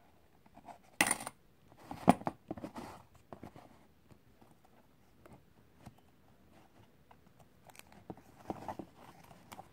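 A coin going into a homemade capsule vending machine, then the handle being turned and a plastic capsule dropping inside. There is a sharp rattle about a second in and a louder knock and clatter about two seconds in, followed by light clicks and handling sounds.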